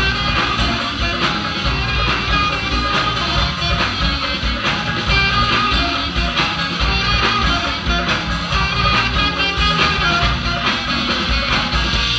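Live band playing loud rock with guitar over a steady beat.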